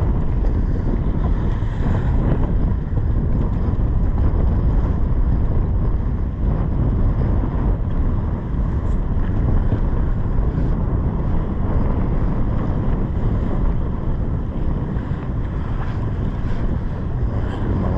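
Steady wind rumbling on the microphone on the deck of a sportfishing boat at sea, with the wash of the water around the boat underneath.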